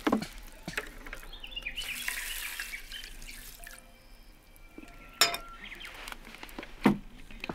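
Water poured from a stainless steel Sierra cup into a metal mess tin of rice, trickling for a couple of seconds, then a few sharp knocks as metal cookware is handled and the cup is set down; the loudest knock comes near the end.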